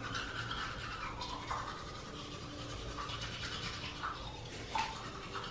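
Manual toothbrush scrubbing back and forth over teeth, brushing with charcoal tooth powder; a soft, steady scrubbing.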